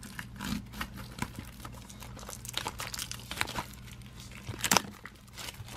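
Plastic shrink wrap being torn and peeled off a Blu-ray case: irregular crinkling and crackling of the film, with a louder rip about three-quarters of the way through.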